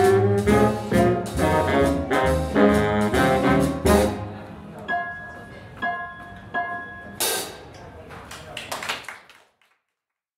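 Jazz band with brass section playing the loud final chords of a tune, then a few sparse, quieter notes and a crash about seven seconds in, before the music fades out to silence.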